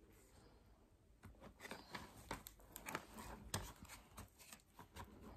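Faint clicks and light knocks of plastic shoe-rack panels and connectors being handled and fitted together, starting about a second in.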